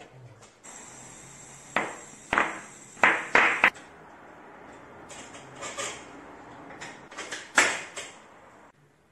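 Compressed air hissing into a tubeless mountain-bike tyre through a digital inflator gauge, with five sharp snaps in quick succession, typical of the tyre beads popping onto the rim as it seats. Later comes more hiss with clicks and one more loud snap.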